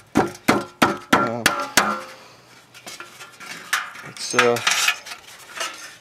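Claw hammer striking the sheet-steel panel of a washing machine: about eight quick metallic taps in the first two seconds, each with a short ring, then a few lighter clinks.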